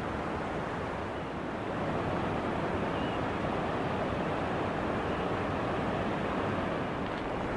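Steady, even rushing noise of open-air ambience, with no distinct events.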